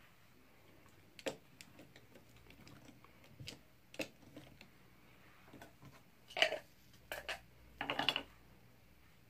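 Small clicks and taps of makeup containers and a brush being handled and set down, scattered at first, with a louder cluster of knocks about six to eight seconds in.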